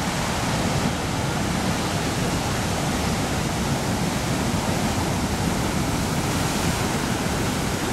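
Ocean surf breaking over black lava rocks: a steady, loud rush of churning water and foam.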